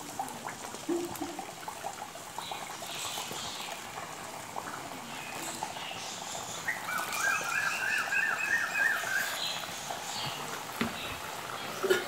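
Pepper vadas (milagu vadai) of black urad dal deep-frying in hot oil in an aluminium kadai, the oil sizzling and bubbling busily as the patties go in and cook. Near the middle a quick run of high chirps, like a bird, lasts a couple of seconds.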